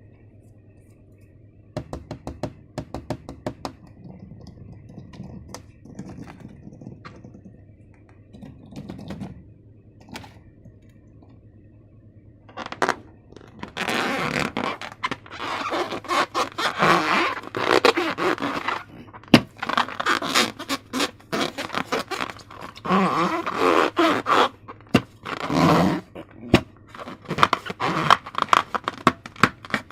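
Slime being worked by hand: scattered small clicks and taps at first, then, about 13 seconds in, a long, much louder run of quick squishing and scraping that pauses and resumes.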